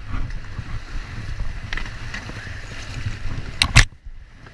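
Inflatable kayak being paddled down a fast, flooded river, with a steady low rumble of rushing water and buffeting on the low-mounted microphone. About three and a half seconds in come two sharp knocks close together as the paddle blade sweeps past the camera.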